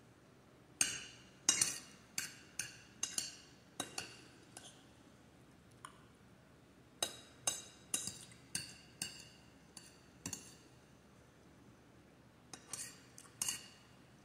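Metal spoon clinking and scraping against an amber glass bowl while food is scooped up: sharp ringing clinks in three runs, with short pauses between them.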